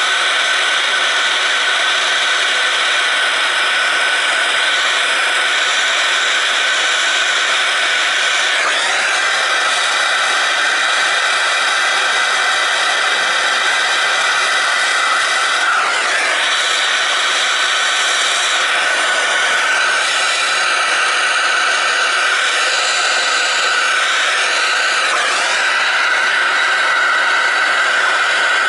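Hose-fed gas soldering torch burning with a steady hiss as its flame heats the copper sweat joints of a Taco zone valve for soldering. The tone shifts briefly a few times as the torch is moved.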